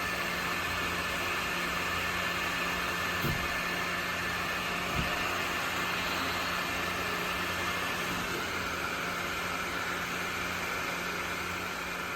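Small battery-powered portable fan running steadily: an even rush of air over a constant low motor hum.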